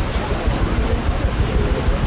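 Wind rumbling on the microphone over the steady rush of water along a paddle steamer under way.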